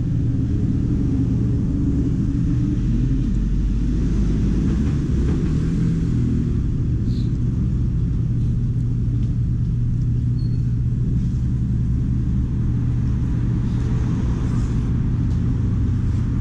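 A steady, unchanging low mechanical hum, with a constant drone underneath and a few faint small clicks on top.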